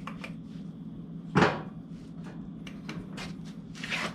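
Light clicks and one sharp knock about a second and a half in, the sound of small parts and hand tools being handled while fitting a car's cowl panel, over a steady low hum.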